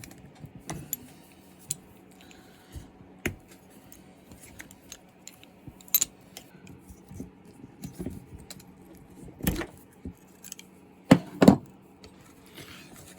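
Hand tools and small metal and plastic chainsaw parts being handled during disassembly: scattered light clicks and metallic clinks, with a few louder knocks about two-thirds of the way through and near the end.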